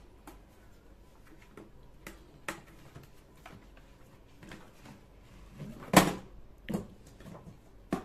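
A toy money bank and its cardboard box being handled and unpacked: scattered light knocks and clicks, with a louder knock about six seconds in and two more shortly after.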